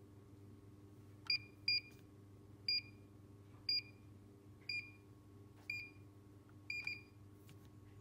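Galaxy alarm keypad's buzzer giving short high beeps about once a second while the keypad shows the alarm setting. A quick double beep comes first and last.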